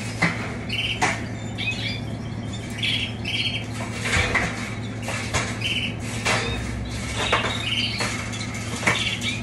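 Caged domestic canaries calling in short repeated bursts of high chirps, with scattered clicks and knocks from the wire cages, over a steady low hum.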